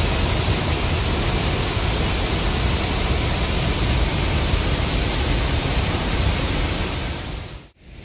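Steady, loud rushing of a 45-metre waterfall plunging into its pool, heard close from the rim. It cuts off suddenly near the end.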